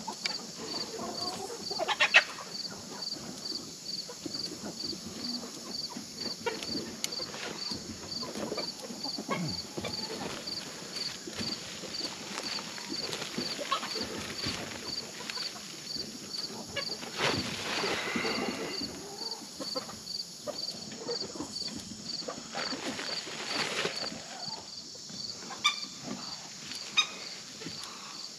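Digging in loose garden soil with a garden fork, with scrapes and knocks and the rustle of a woven feed sack as potatoes are lifted and bagged. Behind it, insects chirp in a steady pulse about twice a second, over a high steady insect hiss that stops about three-quarters of the way through.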